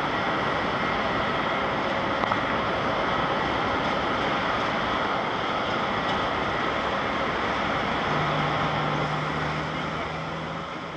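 Distant jet roar of an Airbus A350-900's Rolls-Royce Trent XWB engines as the airliner climbs away after takeoff: a steady rushing noise that begins to fade near the end. A low steady hum joins about two-thirds of the way through.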